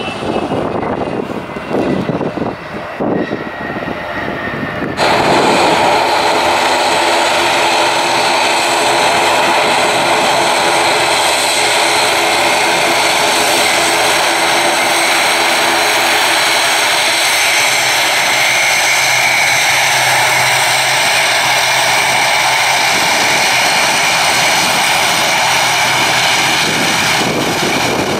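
Embraer regional jet on its landing roll, the engine whine falling in pitch. About five seconds in, a sudden cut to the loud, steady drone of an ATR turboprop airliner's engines and propellers at close range as it taxis.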